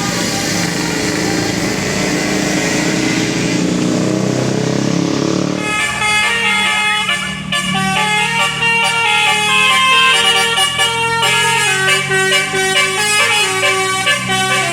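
Loud traffic noise from a vehicle, then about six seconds in a bus's multi-trumpet telolet basuri horn starts playing a melody, stepping through held notes with several sounding together.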